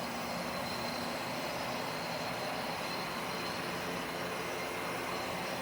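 Steady background noise: an even hiss with a faint high whine, unchanging and without any distinct knocks or clicks.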